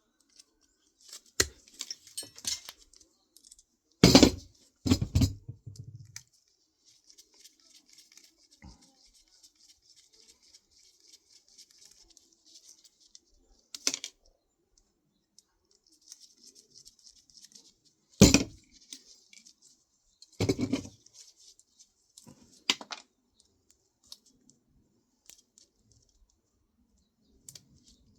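Parts of a 3.5-inch floppy disk drive being pulled apart by hand: several sharp clacks and knocks of metal and plastic pieces, the loudest about four seconds in and again near the middle, with light scratchy rustling between them.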